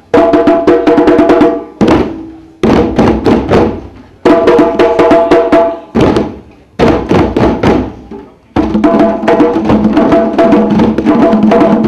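A group of djembe drums played together by hand in rapid flurries of strokes. The flurries start sharply and die away about every one and a half to two seconds, and the last one, from about eight and a half seconds in, runs on longer.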